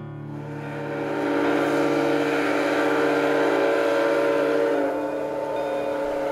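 Steam whistle of Canadian Pacific 4-6-4 Hudson locomotive 2816, sounding one long blast of several notes together over a hiss of steam. It eases slightly in level about five seconds in.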